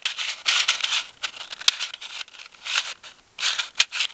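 A Square-1 puzzle being turned quickly through its parity algorithm. Its plastic layers scrape and clatter in quick bursts as the top and bottom turn and the middle slices, with a few sharp clicks.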